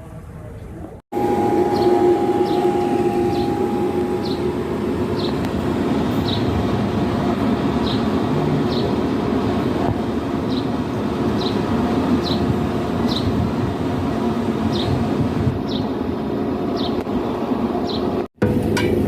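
Stick (arc) welding with a rod: a steady crackling hiss with a low hum under it and short high ticks repeating a little faster than once a second. It starts abruptly about a second in and cuts off just before the end.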